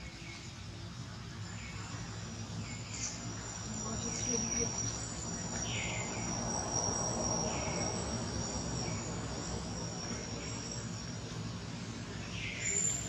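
Insects trilling steadily in a high thin tone, with short falling chirps repeating about once a second.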